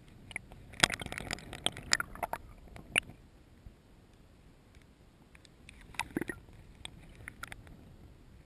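Water gurgling and clicking around a camera dipped just under the surface of a shallow river, heard muffled. It comes in two bouts of clicks and splashy bursts, the first about a second in and the second about six seconds in, with quiet water noise between.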